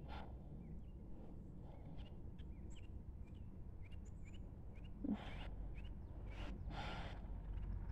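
Faint outdoor ambience of small birds chirping in short repeated notes over a steady low rumble, with a single thump about five seconds in and a couple of brief rustling noises after it.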